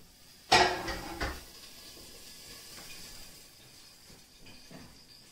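Kitchenware clattering: a sharp knock with a short ring about half a second in, a lighter knock just after, then faint handling noise.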